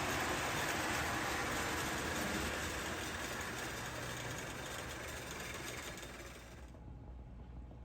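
Restored prewar American Flyer 3110 steeple cab toy train locomotive running on its track with a steady whirring, rattling noise. The noise fades gradually and cuts off about seven seconds in, leaving a faint low hum.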